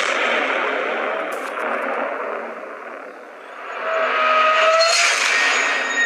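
Whooshing outro sound effect: a loud, noisy rush that dips toward the middle and swells again about four seconds in, with a faint rising tone near the end.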